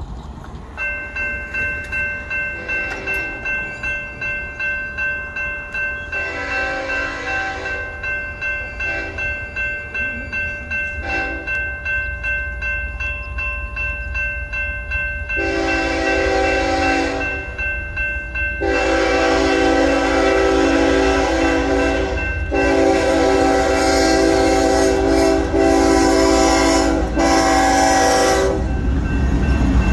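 BNSF freight locomotive's air horn sounding for the grade crossing as the train approaches: a few shorter blasts at first, then long blasts that grow louder and run almost together near the end. Under it a railroad crossing bell rings steadily, about two strokes a second.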